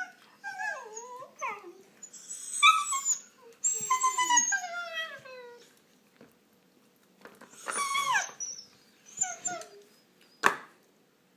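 Shiba Inu puppies whining and yipping in a run of high calls that fall in pitch, some short and some drawn out, as they squabble over a toy. There is a short sharp click near the end.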